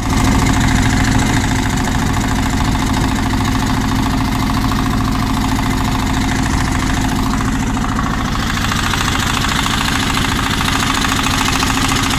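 A fishing boat's engine running steadily as the boat moves along, with a fast, even throb under a wash of water and wind noise.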